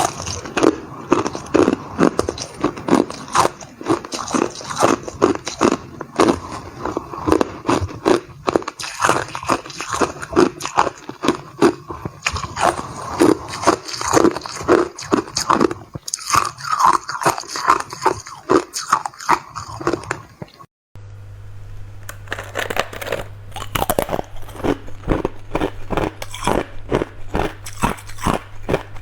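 Hard clear ice being bitten and chewed: a dense run of loud, sharp crunches, several a second, broken by a brief silence about two-thirds of the way through.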